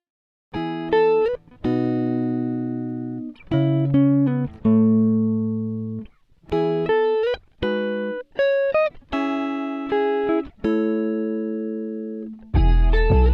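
Background music: a plucked guitar plays chords and short melodic phrases, each one ringing out and fading.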